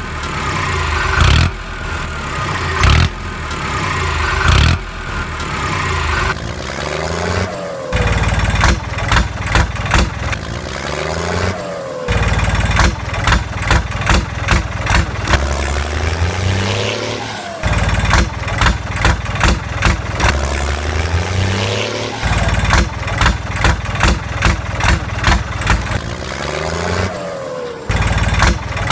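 Truck engine sound effect, idling and revving in a loop that repeats every few seconds, dubbed over a toy tipper truck stuck in mud.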